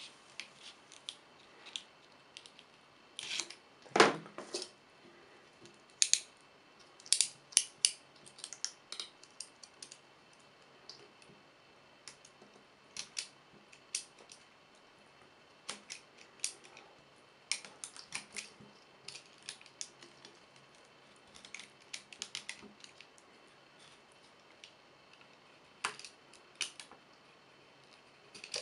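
Scissors snipping and handling a thin plastic soda bottle: irregular sharp clicks and crackles of the plastic, the loudest about four seconds in.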